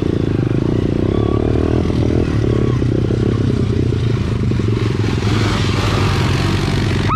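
Dirt bike engine idling steadily close by. In the second half, water splashes as a four-wheeler fords a creek.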